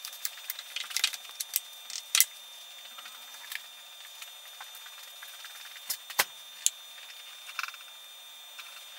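Irregular light metallic clicks and clinks of hand tools and loose parts against the gears and set-screw collars inside an old Monarch lathe gearbox as it is taken apart, the sharpest about two seconds and six seconds in.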